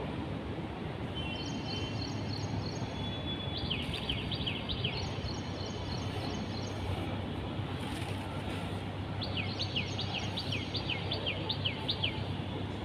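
Small birds calling over a steady low outdoor hum: runs of quick, falling chirps, a short run about four seconds in and a longer one of about four a second near the end, mixed with higher, thin whistled notes.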